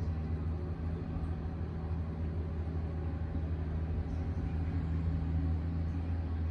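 Excavator's diesel engine running steadily, a low, even drone that holds one pitch throughout.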